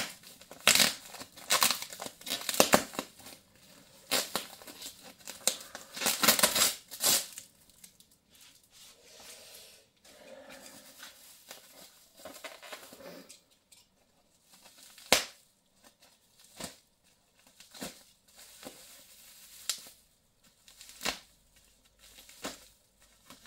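A taped cardboard parcel being cut and torn open: a quick series of sharp ripping strokes over the first several seconds, then softer rustling of packaging and scattered clicks as it is handled.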